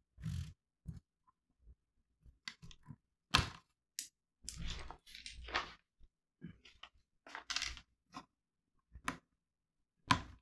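Small plastic Lego bricks clicking, crackling and rattling as pieces are handled and pressed together on a tabletop, in short irregular bursts.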